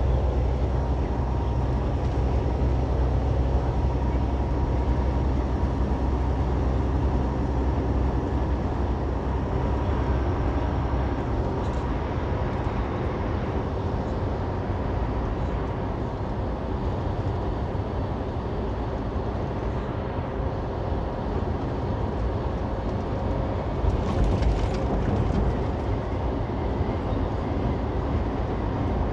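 Semi-truck cab interior while driving: a steady diesel engine drone with road and tyre noise. The deep low rumble eases about eleven seconds in, and there is a brief clatter late on.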